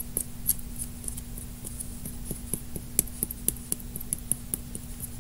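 Light irregular clicks and taps from a small plastic glitter container being handled and tapped to shake glitter into slime, a few a second, over a faint steady hum.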